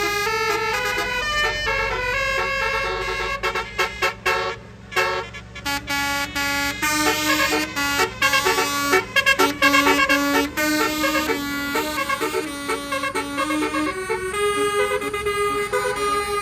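Basuri telolet multi-tone bus horn playing a melody: held horn notes that step up and down in pitch, broken into quick short blasts with gaps around four to six seconds in, then running on as a tune. A steady low hum lies underneath.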